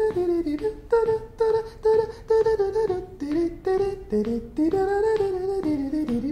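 A man humming a quick, lively wordless melody, the pitch stepping up and down from note to note, each note clipped short with a sharp, percussive start.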